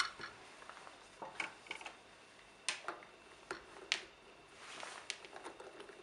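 A few sharp, separate clicks and light knocks of plastic tube connectors being handled and screwed back onto the top and bottom valve fittings of a Seko Tekna Evo dosing pump head. A brief scraping rub comes about three quarters of the way in.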